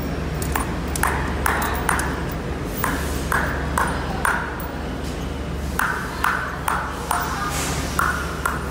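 Repeated short metal-on-metal strikes on a steel hook mold being taken apart, each with a brief ring, coming irregularly at about two a second with a pause partway through. A steady low hum runs underneath.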